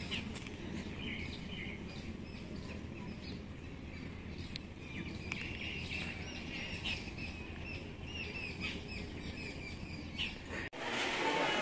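Many small birds chirping and calling over a steady low outdoor background rumble. Near the end this cuts off suddenly and a louder, busier ambience begins.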